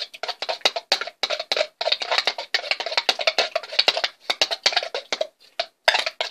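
A spoon stirring borax solution in a container, clinking rapidly and irregularly against the sides.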